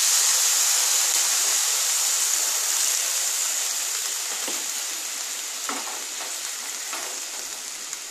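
Water sizzling as it hits a hot non-stick pan of frying oats and vegetables: a loud hiss that slowly dies down as the liquid starts to bubble, with a few faint clicks in the second half.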